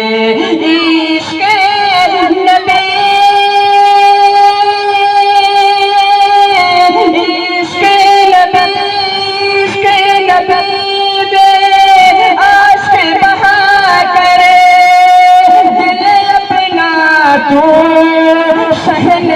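A solo voice singing a naat, drawing out long held notes with wavering, ornamented turns between them.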